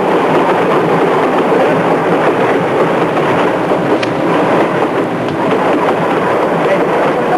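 Passenger train running on the rails: a loud, steady rushing noise from the moving carriages.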